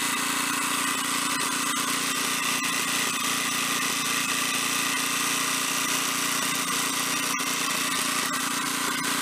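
Small Tecumseh engine on a Snapper Comet riding mower running steadily at a constant speed.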